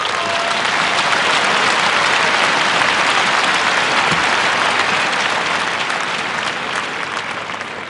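Large arena crowd applauding, fading toward the end.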